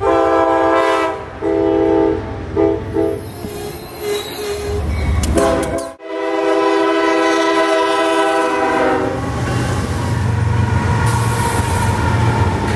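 Locomotive air horn blowing several short blasts, then after an abrupt cut one long blast, followed by the low rumble of a train passing close by.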